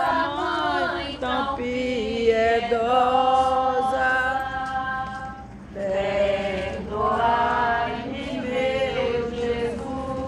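Voices singing a slow Portuguese devotional hymn together, long drawn-out notes with brief breaks between phrases.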